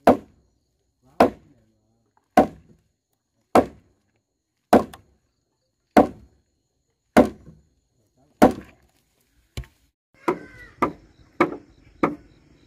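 Steady blows of a tool striking wood, about one every 1.2 seconds. From about ten seconds in they come quicker, roughly twice a second, over a faint background hum.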